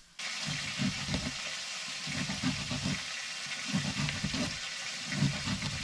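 Ground-beef burger patties sizzling hard in a frying pan, a dense hiss full of fine crackles that starts abruptly just after the beginning. Under it is a low murmur that swells and fades about every second and a half.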